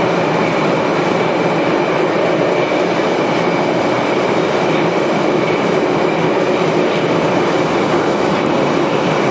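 Moscow metro train running past along the station platform: a loud, steady rolling noise of wheels on rail, with a thin steady high whine over it.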